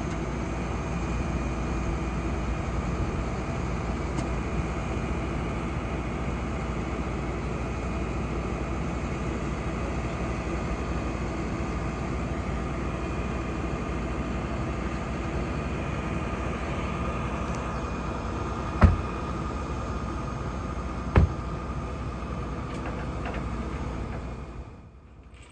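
A flatbed tow truck's engine running steadily, with a steady whine over the engine hum. Two sharp knocks sound about two seconds apart near the end, and the sound then cuts off suddenly.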